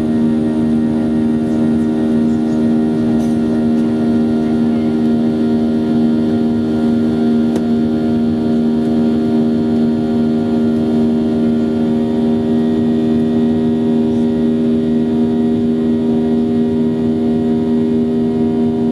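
Jet airliner engines droning steadily, heard inside the passenger cabin during the climb after takeoff: an even hum made of several held tones over a rushing noise.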